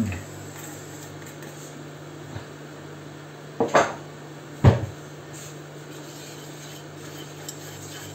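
Kitchen utensils knocking against the pan and stovetop over a steady low hum: one knock at the start, two about three and a half seconds in, and a louder one about a second later.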